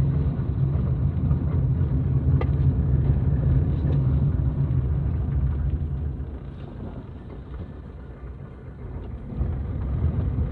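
Inside a car's cabin: the low rumble of the engine and tyres driving slowly over a rough, potholed dirt street, with a light knock about two seconds in. The rumble eases for a couple of seconds near the end, then picks up again.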